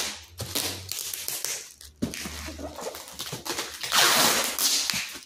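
Plastic bag wrapped around a cardboard box crinkling and rustling in several bursts as the box is handled and taped up with packing tape.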